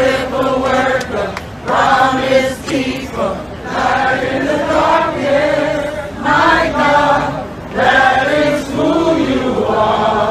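A crowd of voices singing together in unison, in held phrases of a second or two with short breaks between them.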